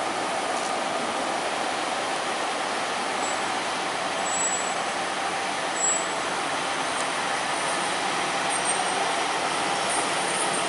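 Steady hissing noise of idling heavy vehicles, with a faint steady hum and a few brief faint high chirps in the middle.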